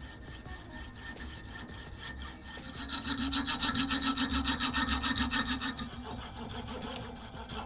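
Coping saw cutting through a carbon fibre tube in quick, even back-and-forth strokes. The strokes grow louder for a few seconds in the middle.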